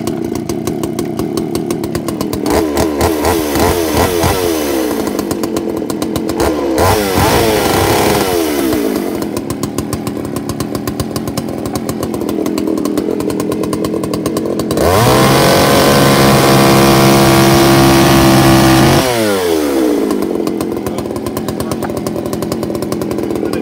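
Freshly started Craftsman two-stroke chainsaw idling, revved up and down briefly a few times, then held at high revs for about four seconds a little past the middle before dropping back to idle.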